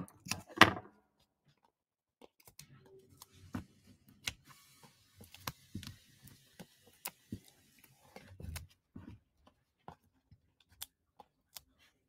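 Foam adhesive dimensionals being peeled off their backing sheet by hand: quiet scattered clicks and taps, with a stretch of crinkly rustling of the backing sheet in the middle.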